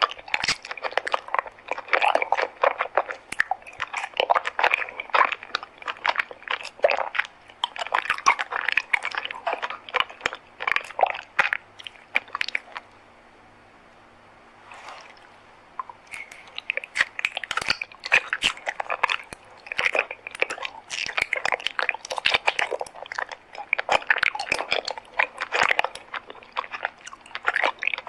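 Close-miked chewing of a honey treat: rapid, crisp crunching and biting that stops for about three seconds about halfway through, then resumes.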